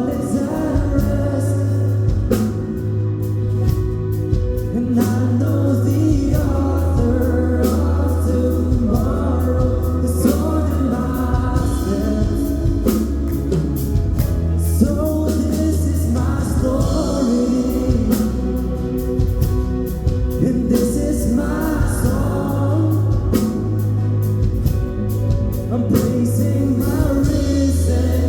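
Live worship music: a band with a steady bass, and voices singing a gospel song.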